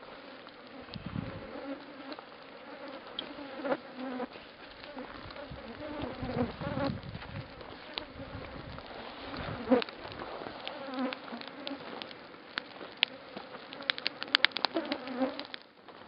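Flies buzzing around, the drone swelling and fading as they come and go. A cluster of sharp clicks comes near the end.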